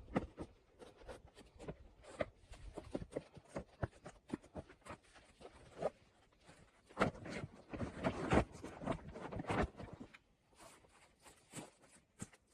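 Irregular clicks, knocks and rustling of someone handling things by hand, busiest about seven to ten seconds in and thinning out near the end.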